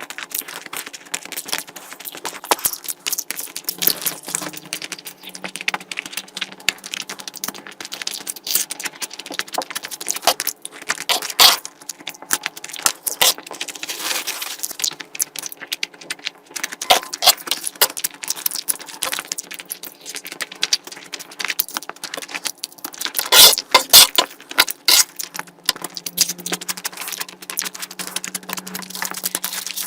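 Close-miked eating: wet chewing and mouth clicks, a dense, irregular patter of small clicks, with a louder cluster about three-quarters of the way through.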